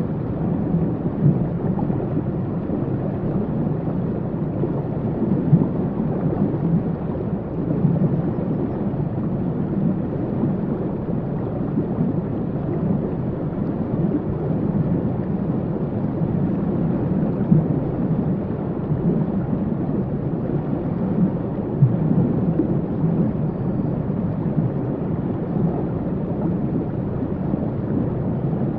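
Waterfall: a steady, deep rush of falling water, unchanging throughout.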